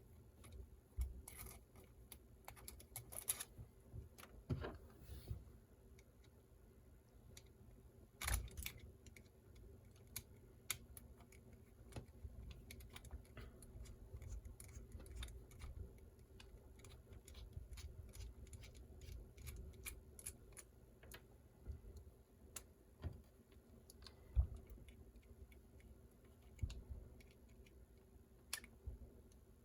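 Small hand tools and hard plastic parts of an Axial SCX24 mini RC crawler being worked on: scattered light clicks and taps at irregular intervals as the battery tray is unscrewed and removed, over a faint low hum.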